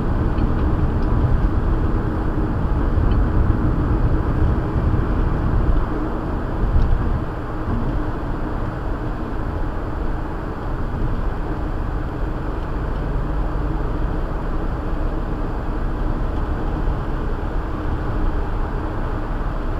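Steady road and engine noise of a moving car, heard from inside the cabin through a windshield-mounted dash cam's microphone, a little quieter from about eight seconds in.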